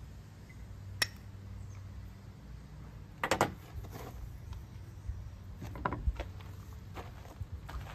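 Steel striker struck against a hand-held flint to throw sparks onto char cloth: a few short, sharp scraping clicks, the loudest a quick cluster of strikes a little over three seconds in, with more around six and seven seconds.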